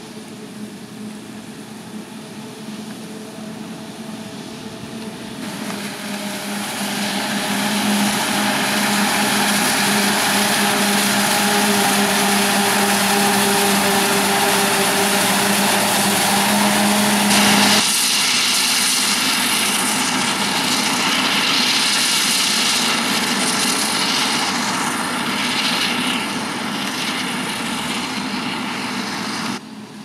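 Claas Jaguar 970 self-propelled forage harvester chopping maize, with a John Deere tractor and trailer running alongside: a steady engine drone under a wide hiss. It grows louder over the first several seconds and changes abruptly partway through.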